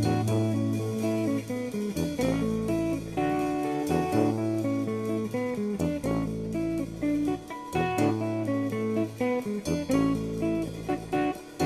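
Instrumental passage of a band piece with no singing: plucked guitar notes over low bass notes that change every second or two, in a style drawing on regional northeastern Brazilian music, rock and African guitar music.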